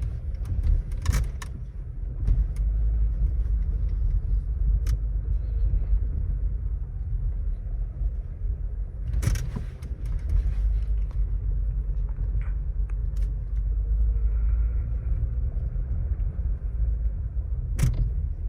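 Dashboard of a Volkswagen Taigun GT Plus rattling: sharp, irregular clicks over the steady low rumble of the car's cabin, the loudest about nine seconds in and near the end. The rattle is a fault that the authorised service centre has not been able to fix.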